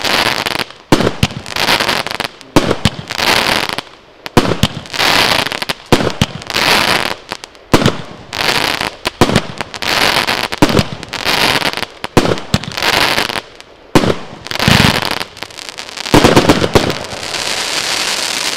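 Pangu Fireworks 'Azure Dragon' multi-shot cake firing, a sharp bang about once a second, each shot followed by the hissing crackle of glittering stars. The crackle hangs on steadily after the last shots.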